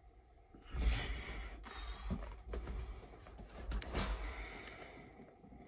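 A person drops down from a pull-up bar with a low thump about a second in, then breathes hard while moving right up to the camera, with rustling and handling knocks that peak near the end.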